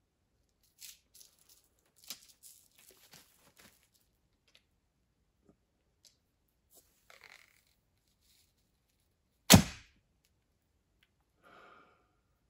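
Archer shooting a traditional bow: soft rustles and clicks as the arrow is nocked and drawn, then one loud sharp crack with a short ring-out about nine and a half seconds in as the string is released and the arrow is loosed.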